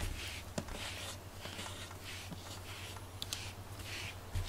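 A rubber grooming brush stroking a cat's fur, a soft repeated brushing about twice a second.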